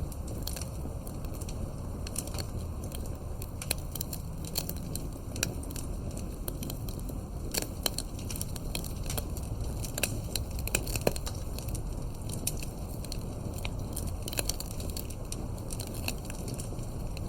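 Fireplace crackling: irregular snaps and pops over a steady low rumble.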